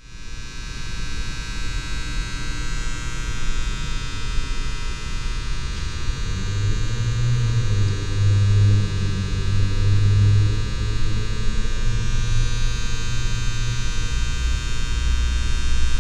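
Electrical hum and buzz: a steady low hum under a high whine made of many steady tones. The low hum grows louder about halfway through.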